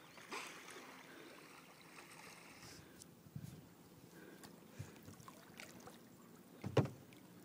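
Faint water lapping and light splashing around a kayak on calm water, with a few soft knocks and one sharper thump near the end.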